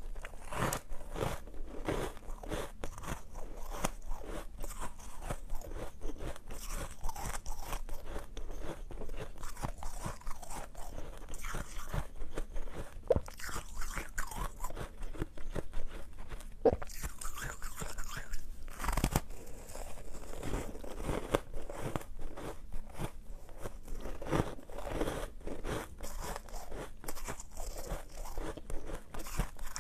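Close-miked crunching of a chunk of frosty, pastel-coloured ice being bitten and chewed: a dense run of sharp crunches, with one louder bite a little past the middle.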